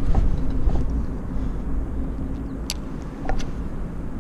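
Low rumble of traffic crossing the road bridge overhead, with a few sharp clicks in the second half.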